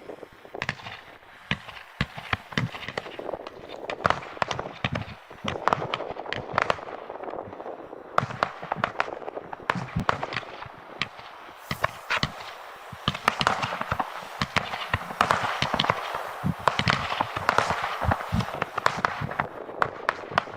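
Blackboxx 'Lava Rain' low-noise firework going off: a dense, continuous crackling of many small sharp pops over a hiss, starting just after the beginning and running on for about twenty seconds.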